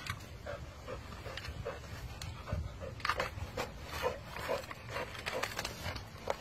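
A dog chewing and tearing the fibrous husk off a coconut. Short puffs of the dog's breath come about three times a second, with sharp crackling rips of the coir fibre now and then.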